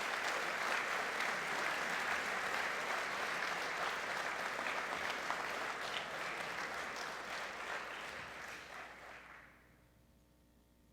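Audience applauding steadily in a large gym, then the clapping dies away about nine seconds in.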